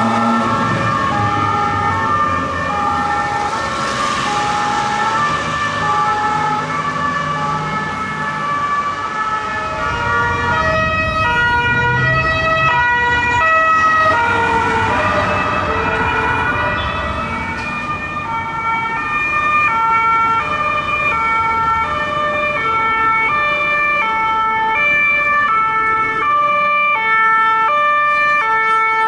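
Swiss police two-tone sirens sounding, alternating steadily between a high and a low note, as several police vehicles pass in turn. The rush of the passing vehicles swells under the sirens twice.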